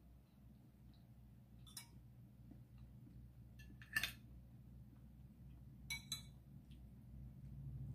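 Metal fork and spoon clinking against ceramic plate and bowl while eating, a few separate clinks, the loudest about four seconds in and a quick pair about two seconds later.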